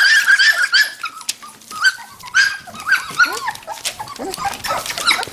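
Standard poodle puppies whimpering and yipping in short, high-pitched squeals. The squeals come close together for about the first second, then more scattered, some rising and some falling in pitch.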